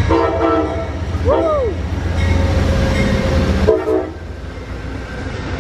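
Amtrak P40DC diesel locomotive passing close by, its engine rumble heavy until the locomotive has gone past about two-thirds of the way through, then the lighter running of the passenger cars. Short horn sounds come at the start and again just before the rumble drops.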